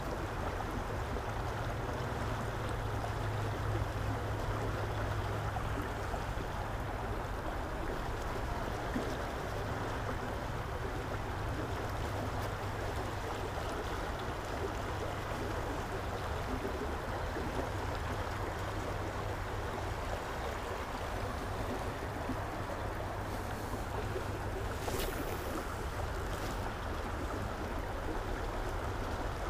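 Steady rush of flowing stream water, with a few faint clicks near the end.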